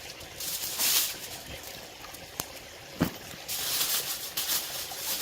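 Aluminium foil crinkling in bursts as it is folded and wrapped around a fish, with a sharp click and a single thump about three seconds in.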